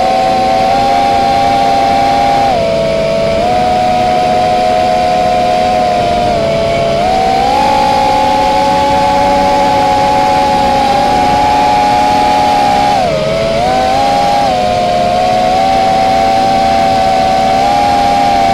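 Multirotor FPV drone's electric motors and propellers whining loudly, heard from the onboard camera. The pitch drops and climbs with the throttle: down a couple of seconds in, up again a few seconds later, and another brief dip about 13 seconds in.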